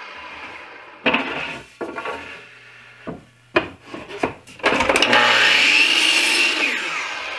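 Knocks and clatter of a 1x4 board being handled and set on a miter saw, then the miter saw spins up about five seconds in, cuts through the board, and winds down near the end with a falling whine.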